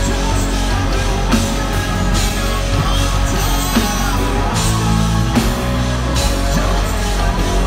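Rock band playing live in a heavy rock style: drum kit, electric guitar and bass guitar together, at a steady loud level.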